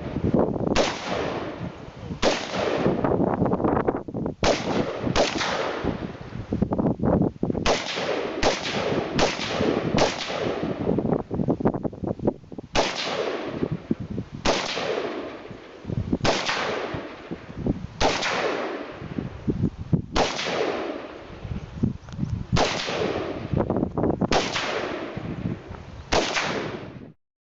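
Repeated gunshots from firearms at an outdoor range: about eighteen single shots, mostly one every one to two seconds with a quicker string of several shots around a third of the way in, each followed by a ringing echo. The sound cuts off abruptly near the end.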